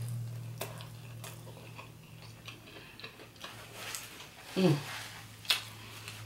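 Close-up chewing and mouth clicks of a person eating curry turkey wings and rice, with a brief hummed 'mm' about four and a half seconds in, over a steady low hum.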